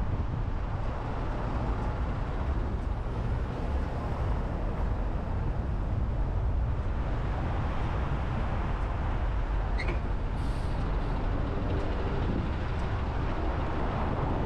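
Steady road and engine rumble of a car driving in city traffic. About ten seconds in there is a brief high squeal followed by a short hiss.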